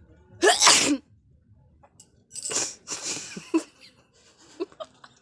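A woman sneezing loudly about half a second in, then a second, longer run of sneezing and breathy bursts a couple of seconds later.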